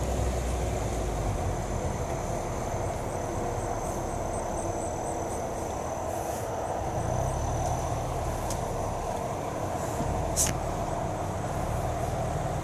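2001 Subaru Legacy GT driving over a rough off-road trail, heard from inside the cabin: steady engine and tyre rumble. A single sharp knock comes about ten seconds in.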